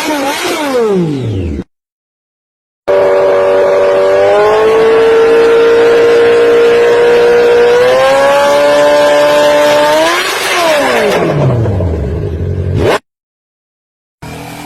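An engine's pitch falls away and stops, then after a second of silence another engine runs at a steady pitch. It steps up in pitch twice, rises briefly, then falls away and cuts off abruptly.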